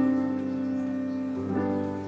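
Slow background music of held notes, with a new note or chord entering about one and a half seconds in.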